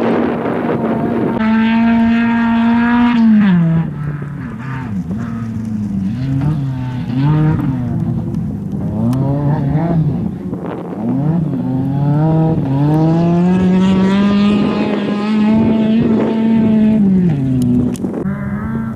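Race car engines at high revs as the cars pass: one held high, then dropping away with several short rises and falls of throttle, as when slowing and changing down for a corner. Another climbs in pitch as it accelerates, holds high, and drops off near the end.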